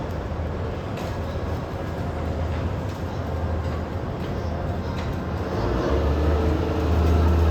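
Rail movement of an E231-series railcar being towed by the OM-1 shunting unit: a steady rumble with a few faint clicks. A low hum grows louder about six seconds in.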